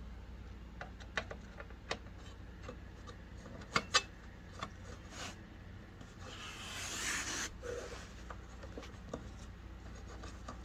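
Screwdriver working a small screw out of an amplifier's front control board: scattered light clicks and taps of metal on metal, with a longer scraping rasp a little past halfway through.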